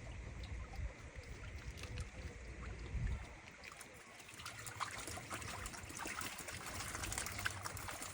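Water trickling and splashing in many small crackling drips, over a low rumble that fades after about three seconds.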